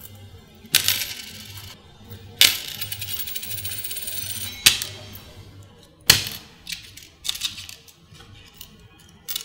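Loose coins tipped and dropped onto a shop counter, clattering in several sharp spills, one followed by about two seconds of jingling, as a handful of change is sorted through.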